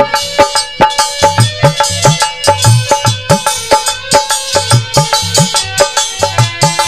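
Instrumental break in a ghazal song: quick drum strokes several times a second, with deep strokes that slide up in pitch, under steady held melody notes.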